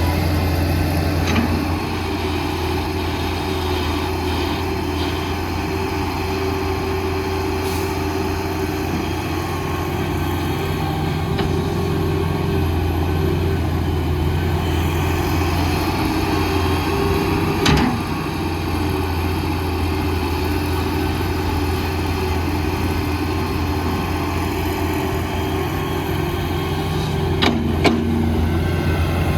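Heavy diesel construction machinery running steadily with a low engine drone, with a few sharp knocks, one about halfway through and another near the end.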